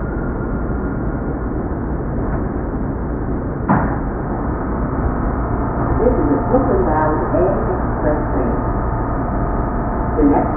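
NYC subway train running with a steady low rumble, a single sharp clank about a third of the way in, and wavering pitched tones coming in over the rumble in the second half.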